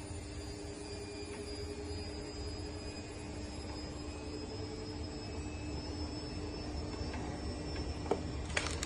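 A steady low hum with a faint steady tone over it, and a couple of short clicks near the end.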